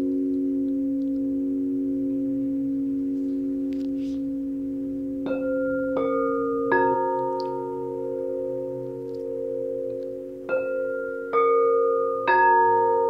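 Quartz crystal singing bowls sounding several overlapping tones that ring on steadily. About five seconds in, three bowls are struck one after another, each adding a higher ringing note. The same run of three strikes comes again near the end.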